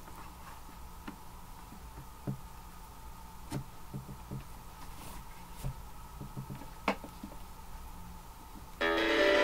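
Scattered light clicks and knocks as an iPad is handled and fitted into a wooden guitar-shaped body, over a faint steady hum. Near the end a loud chord from the tablet's guitar app starts and keeps ringing.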